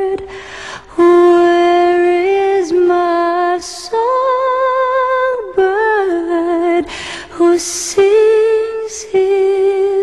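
A woman singing wordless held notes, humming or vocalising with little or no accompaniment. The notes are long and steady, stepping up and down in pitch, with a short audible breath between phrases.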